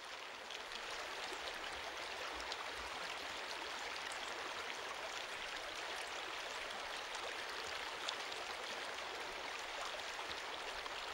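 Steady rush of flowing river water, an even hiss with faint scattered ticks.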